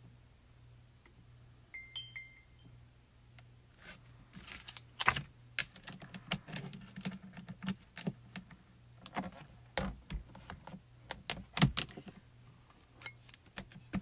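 Irregular clicks, taps and knocks of hard plastic from rubber-stamping tools being handled on a stamp positioner: the clear stamp, the positioner's plate and ink pads being picked up, set down and tapped. It starts about four seconds in.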